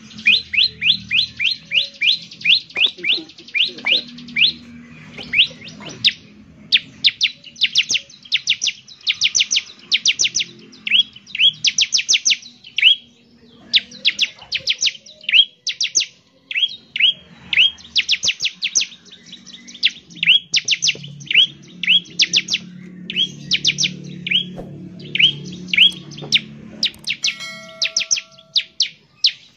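Bar-winged prinia (ciblek) singing: bursts of rapid, sharp, high sweeping notes repeated one after another in a fast rattling delivery, with a faint low hum underneath.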